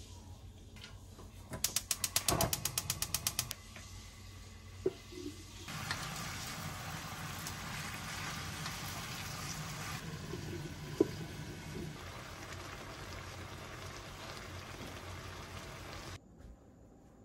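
A rapid run of ratchet-like mechanical clicks, about ten a second, for two seconds. A few seconds later a steady rushing noise runs for about ten seconds and then cuts off suddenly.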